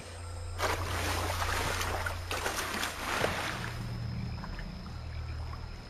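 Water splashing and sloshing as a capybara flees through shallow water. The splashing is busiest in the first few seconds, then settles, over a low steady drone.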